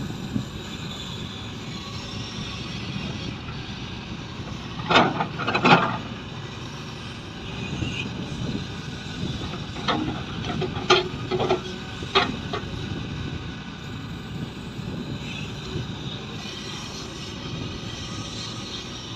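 Shantui excavator's engine running steadily while it digs, with a few sharp knocks, the loudest pair about five to six seconds in and a cluster around ten to twelve seconds.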